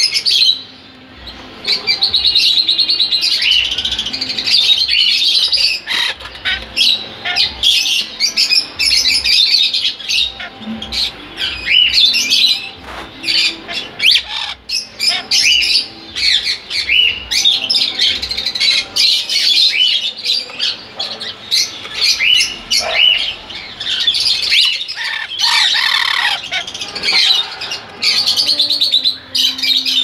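Many caged parrots chirping and squawking, with short calls overlapping almost without pause.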